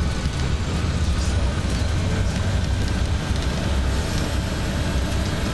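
Tour bus driving along, heard from inside the cabin: a steady low engine-and-road rumble.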